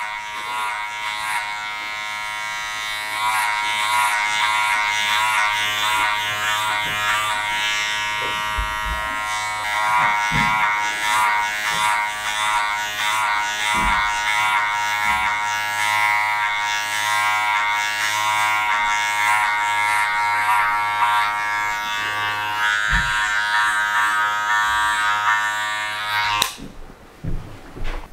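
Electric hair clippers with a comb attachment buzzing steadily as they are run over the top of short curly hair, taking a light trim off the curls. The motor cuts off suddenly near the end.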